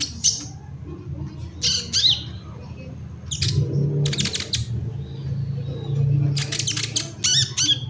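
Sunbird (kolibri ninja) calling in four bouts of sharp, rapidly sweeping chirps and squawks, over a steady low hum.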